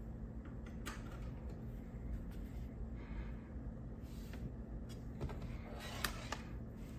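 A few faint clicks and handling noises over a steady low hum; the sharpest click comes about six seconds in.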